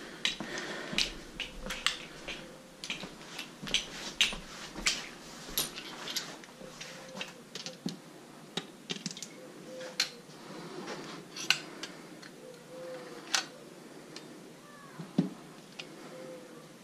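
Irregular sharp metallic clicks and clinks of hand tools being handled, one to three a second and growing sparser toward the end.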